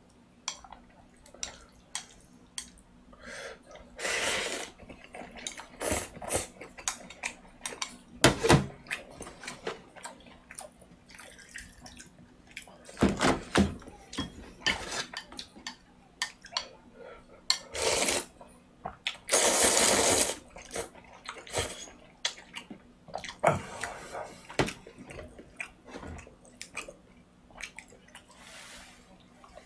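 Thick noodles slurped from a bowl of broth in several bursts, with wet chewing and sharp clicks of chopsticks and dishes in between.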